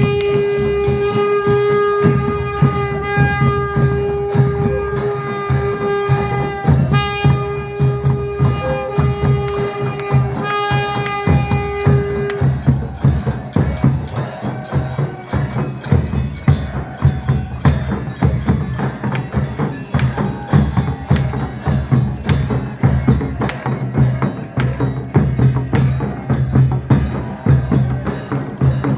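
Music with a fast, dense percussion beat and tambourine-like jingles. A single long held note sounds over it for about the first twelve seconds, then drops out and leaves only the percussion.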